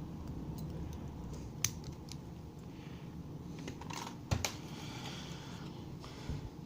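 Small metal clicks and light rattles from a 30mm Kinzo padlock and lock picks being handled, with a few sharp clicks about four seconds in, the loudest with a dull knock.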